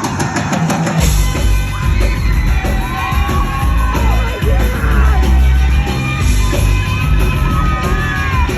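Live rock band playing loudly in a large hall, with heavy bass and drums coming in about a second in. Crowd members yell and whoop over the music.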